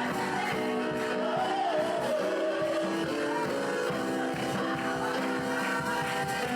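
Live worship band music: guitar over long held chords, steady throughout.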